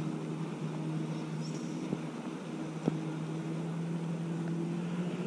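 A boat motor running with a steady low hum, with a few light taps.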